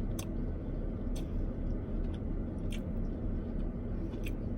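Faint scattered clicks from someone eating salad, four or five spread through, over a low steady background hum.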